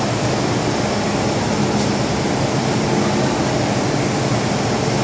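Steady hum of a stationary MTR M-Train standing at the platform, its air-conditioning and auxiliary equipment running.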